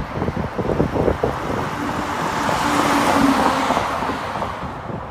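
A semi-trailer truck passing close by on the road, its tyre and engine noise swelling to a peak about three seconds in and then fading. Wind gusts rumble on the microphone in the first second or so.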